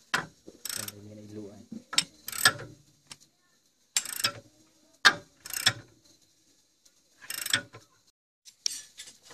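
Steel wrench working a tiller-blade bolt on a tractor rotavator: about eight irregular, sharp metallic clicks and scrapes as the spanner is fitted, turned and repositioned on the bolt.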